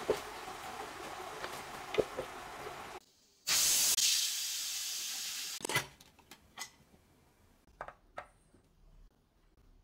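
Duck bulgogi sizzling in a skillet with wooden spatulas clicking against the pan, then a stainless pressure cooker venting steam with a loud steady hiss for about two seconds that ends in a knock. Light taps follow near the end.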